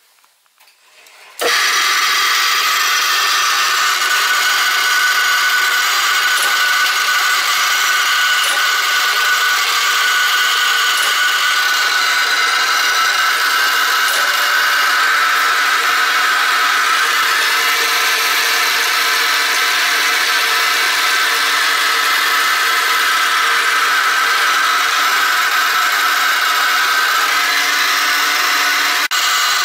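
Leather splitting machine switching on about a second and a half in, then running steadily with a whine made of several steady tones over a hiss, with a few faint ticks.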